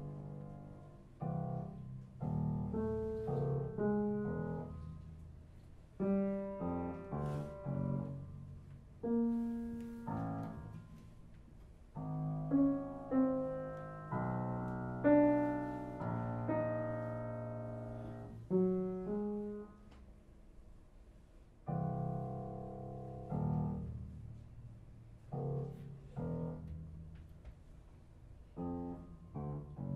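Upright piano played solo in a slow, sparse classical piece: short groups of notes and chords, each struck and left to ring away, with brief pauses between phrases.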